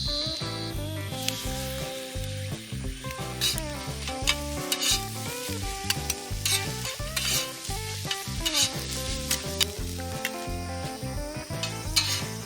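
Fried rice sizzling in a pan over a campfire, stirred and tossed with a spatula that scrapes and clacks against the pan several times, over background music.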